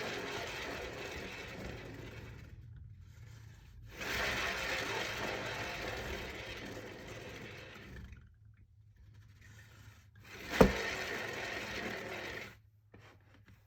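Cake-decorating turntable spinning under a painted canvas, its bearing whirring. Each spin starts loud and fades as the turntable slows, and it is spun again twice. A sharp knock comes about ten and a half seconds in.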